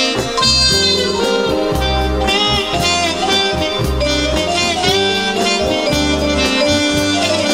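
Light jazz played on a synthesizer keyboard: a lead melody with bent, gliding notes over a steady bass line and rhythm backing.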